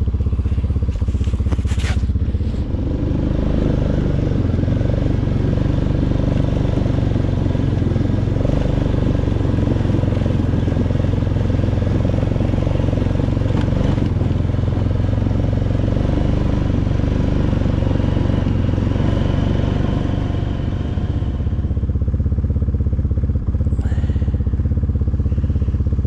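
Four-wheeler ATV engine running at a steady speed while riding.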